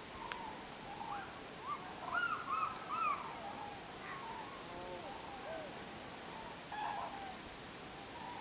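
Common cranes calling from a flock: many overlapping rolling, bugling calls, loudest and densest about two to three seconds in, with fainter calls through the rest.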